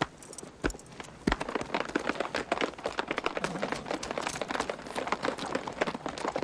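Horses' hooves clattering and shuffling in a dense, irregular patter, with a sharper knock about a second in.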